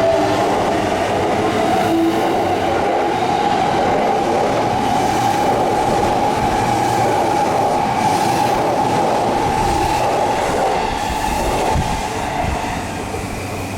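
Electric commuter train running past the station platform: a loud, steady running noise with a steady whine through it, easing off a little near the end.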